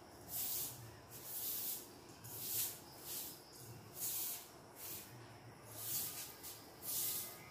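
Broom sweeping a concrete floor: a regular run of short swishing strokes, about two a second.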